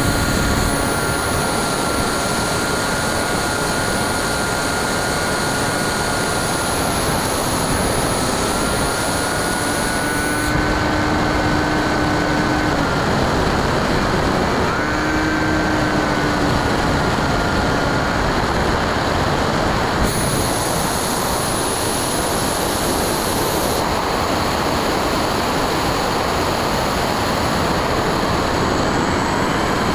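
Whine of an RC plane's NTM 35-30 1400kv brushless motor and 9x6 pusher propeller over loud wind rush on the onboard camera's microphone. The whine shifts in pitch with throttle, cuts out a little before halfway, comes back briefly, then stops a few seconds later, leaving only the rush of air as the plane glides.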